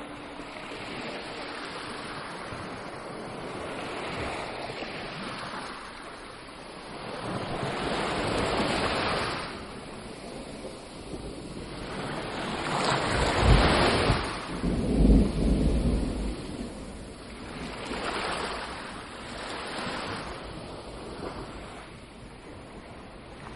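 Rushing noise that swells and fades every few seconds, with no clear tone in it; the loudest swell, about halfway through, carries a deep rumble.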